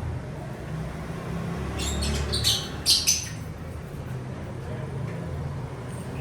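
Small pet parrots giving a quick cluster of short, shrill calls about two to three seconds in, over a low steady background rumble.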